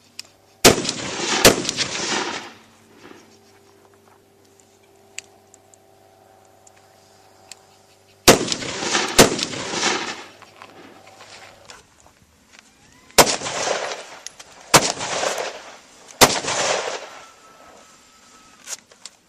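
Carbine gunfire: seven sharp shots in three groups, two, then two, then three, each followed by about a second of echo.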